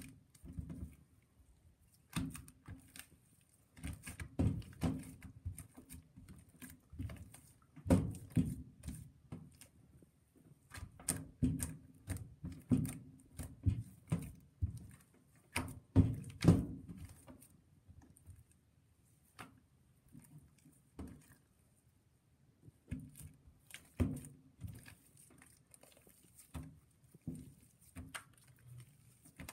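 Hands working slime: irregular soft squishes, pops and clicks in uneven clusters, with quieter gaps between.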